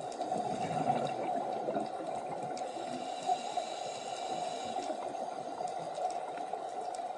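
Steady underwater bubbling and gurgling, the sound of a scuba diver's exhaled air bubbles.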